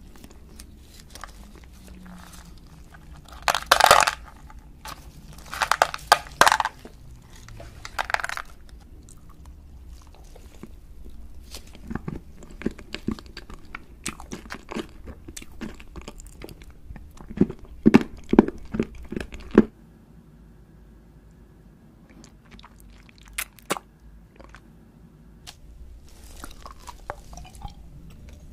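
Close-miked eating: three loud crunching bites a few seconds in, then a run of smaller chewing crunches and mouth clicks. The background drops suddenly about two-thirds through, leaving only a few quiet mouth clicks.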